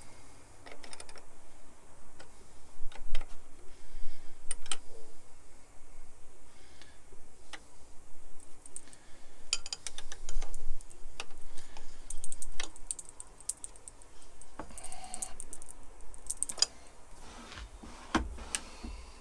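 Irregular light metallic clicks and clinks of small steel parts, screws and a wrench being handled and fitted on a metal lathe's cross-slide carriage.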